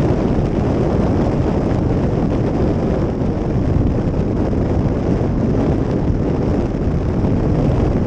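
Wind buffeting the microphone of a camera mounted on a motorcycle at riding speed: a loud, steady rumble with no engine note.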